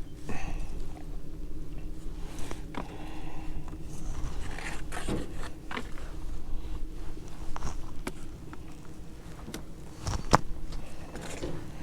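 Irregular clicks, knocks and scrapes over a low steady rumble, with one sharp knock about ten seconds in the loudest.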